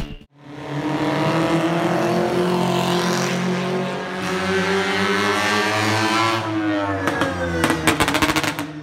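A vintage racing car's engine running hard as it drives up the road, its pitch rising slightly, holding, then falling about six and a half seconds in as it goes past. A rapid crackling follows near the end.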